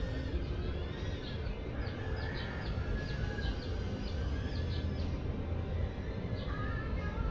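Outdoor ambience: birds chirping and calling repeatedly over a steady low rumble.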